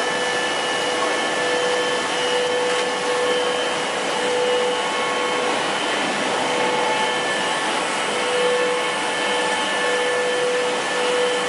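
Twin-screw extruder pelletizing line running: a steady machine whir with a few constant whining tones, from the line's motors and the centrifugal air blowers drying the plastic strands.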